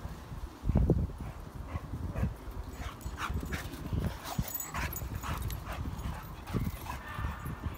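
Yellow Labrador dogs play-fighting, making a run of short yelping and whining sounds. A loud low rumble comes about a second in.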